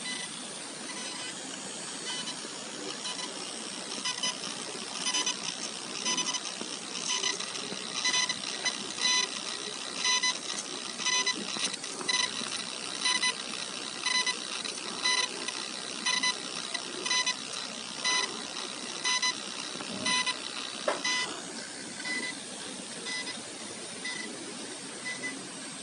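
Coil whine from the inductors (chokes) of an Asus ROG GL703GE gaming laptop with its fans off, amplified: a steady high hiss under a high-pitched electrical chirp that pulses about once a second, loudest through the middle.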